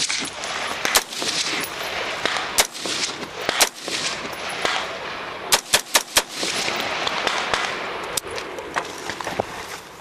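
Rifle gunfire: single shots a second or so apart, then a quick string of about five shots just past the middle, then a few more scattered shots.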